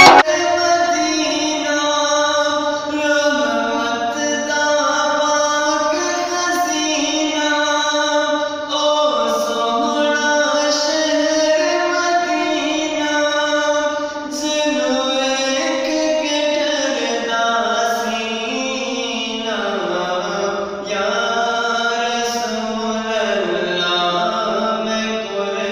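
Young man's voice reciting an Urdu naat, sung as a slow melody with long held and gliding notes, without instruments.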